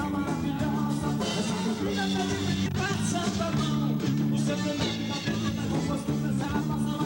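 A band playing an upbeat song, with a stepping bass line and regular drum hits.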